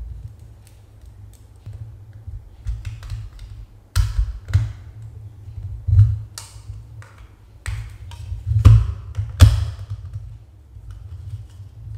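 Small clicks and knocks of a plastic camera housing and a precision screwdriver being handled while a screw is undone and a cover is worked loose, with sharper knocks about four, six and nine seconds in, over a steady low hum.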